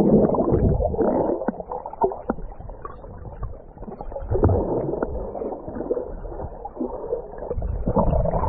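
Muffled underwater sound of sea water moving and bubbling, with scattered small clicks and knocks.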